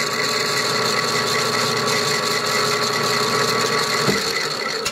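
Metal lathe running with a pair of 3D-printed plastic bevel gears meshing on it, the large gear on the spindle at about 270 RPM driving the small one on a drill bit: a steady whir with a fine gear-tooth buzz. The sound changes about four seconds in and stops at the very end.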